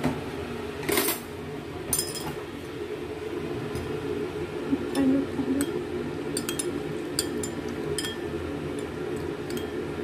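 Metal spoon stirring sauce in a ceramic bowl, clinking against the bowl's side in a scatter of irregular light clinks, the sharpest about a second and two seconds in, over a steady low hum.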